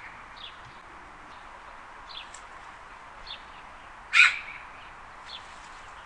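Recording of a Eurasian magpie: one loud, short call about four seconds in, over a steady hiss with a few faint short calls scattered through it.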